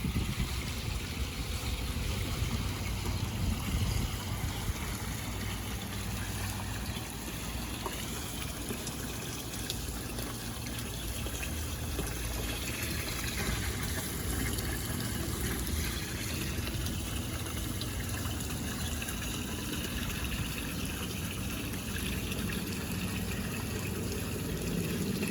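Water from a swimming pool's waterfall feature pouring and splashing steadily into the pool.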